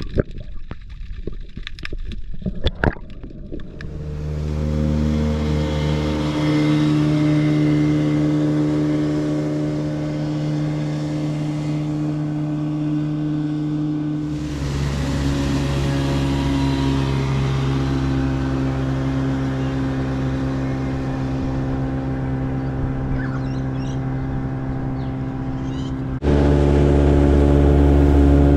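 A few sharp clicks underwater, then an outboard motor on a small aluminium boat running steadily at cruising speed. Its pitch shifts slightly about halfway through, and it grows louder near the end.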